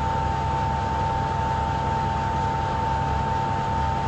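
Steady machine hum: a constant low rumble with a high steady whine over it, from workshop machinery running.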